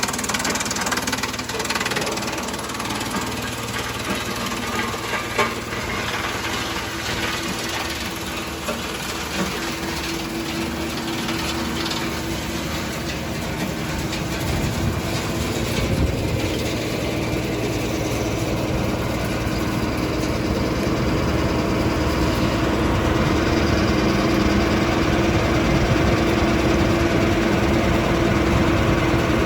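Drum wood chipper running, with irregular knocks and crackle over a steady machine hum; the hum grows louder and more even over the second half.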